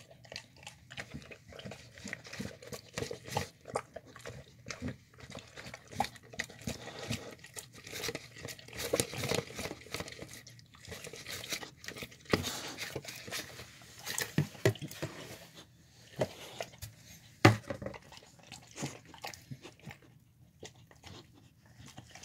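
Dog eating and licking food out of a clear plastic tub with its head inside it: wet chewing and lapping with irregular small clicks and scrapes against the plastic, and one sharper knock about 17 seconds in.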